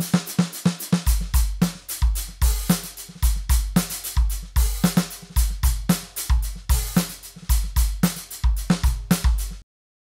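Sampled DS Drum RCS Essentials acoustic kit, processed through the Haus 'Chopper' preset, playing a drum groove. The kick drum has a long, deep boom, with snare and hi-hat hits over it. The groove stops abruptly about nine and a half seconds in.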